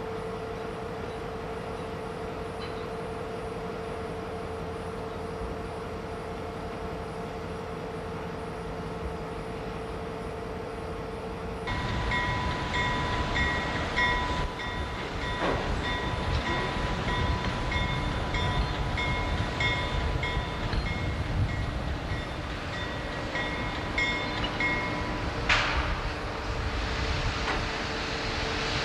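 Steady industrial machinery hum carrying a constant tone. About twelve seconds in it changes abruptly to louder low rumbling machinery with a steady high whine and a repeating beeping tone, which stops a few seconds before the end.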